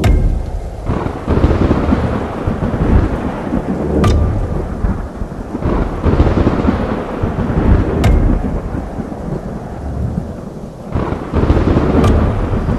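Thunderstorm: rolling thunder rumbling over heavy rain, with a sharp crack of thunder about every four seconds.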